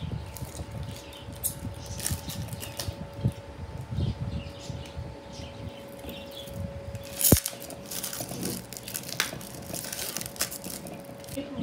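Blue protective plastic film being peeled and crumpled off a new manual meat slicer's metal plates, crinkling and crackling unevenly, with one sharp knock of the metal parts about seven seconds in.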